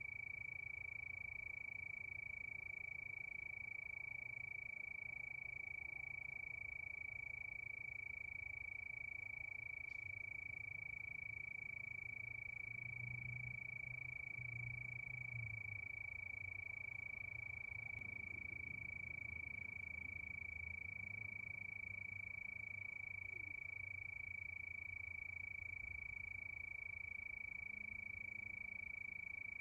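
Chorus of crickets: a continuous high trill held at one pitch, with a faint low rumble underneath.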